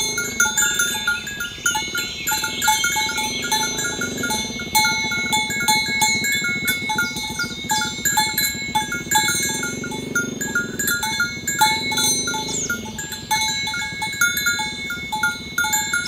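Background music of short, evenly repeated mallet-like notes. Under it, cows moo in long, low calls, about two seconds in and again from about nine to thirteen seconds in.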